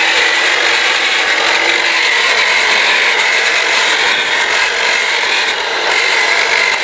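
Eurom corded electric weed cleaner running steadily, its motor whining as the spinning brush scrapes along the joints between paving stones.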